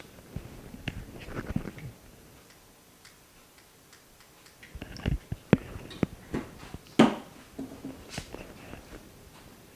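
Scattered light clicks and knocks of tools and a small metal piece being picked up and set down on a workbench, in two bursts with a pause between; the loudest knock comes about seven seconds in.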